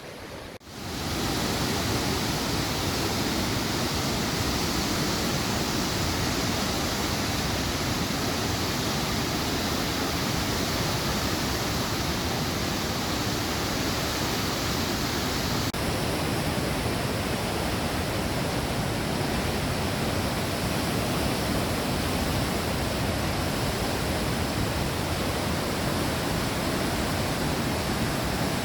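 The Niagara River's Class 6 whitewater rapids rushing, a loud, steady roar of churning water with no break, its tone shifting slightly about halfway through.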